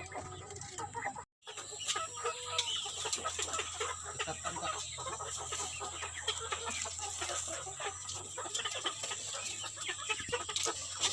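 Domestic chickens clucking, a flock making short, overlapping calls. The sound cuts out completely for a moment a little over a second in.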